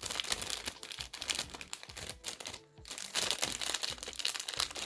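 Packaging crinkling and rustling as it is handled and opened: a run of rapid, irregular crackles with a short pause a little past halfway.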